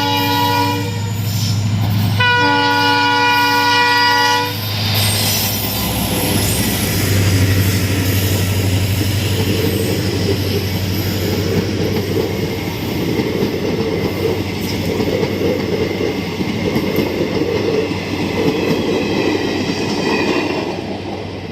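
A train horn sounding twice, a short blast then a longer one, followed by the steady noise of a train running along, easing off slightly near the end.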